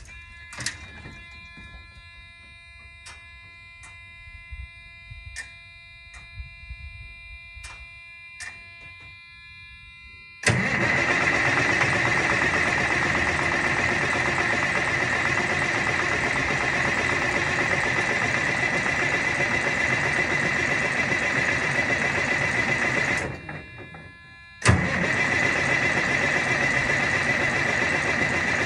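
Cold start of a Detroit Diesel Series 60 12.7-litre truck engine that has sat for a week. About ten seconds in, the engine is cranked over loudly and steadily for about twelve seconds. It stops, and after a second and a half it is cranked again, starting with a sharp hit. Before the cranking there is only a faint steady tone and a few clicks.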